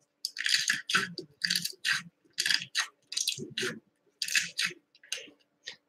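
Slime being squeezed and kneaded by hand in a slime video, making an irregular run of short, crisp clicking squishes, about three a second, heard as played back through a device's speaker.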